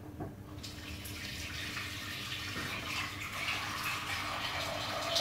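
Water running from a kitchen tap, starting about half a second in and building steadily.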